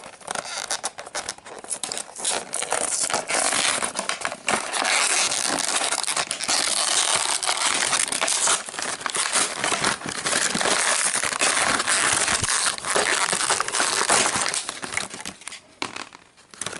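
A doll's retail box and its packaging being opened and handled by hand: a dense, continuous run of crackling and rustling that eases off near the end.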